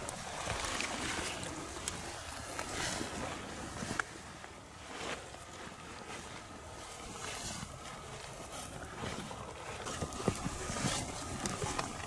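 Rustling of rain gear and footsteps through brush over a steady hiss of wind and rain, with a few sharp clicks and snaps.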